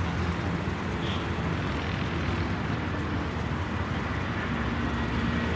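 Steady outdoor background rumble with a hiss over it, even throughout, with no distinct events.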